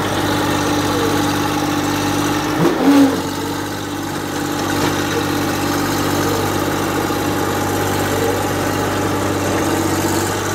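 FiatAllis 7D crawler tractor's diesel engine running steadily at idle, with a brief louder burst and wobble in pitch about three seconds in.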